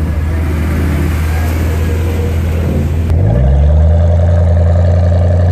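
Car engine running with a low, steady rumble. About three seconds in it is revved up, and the pitch rises and holds higher and louder.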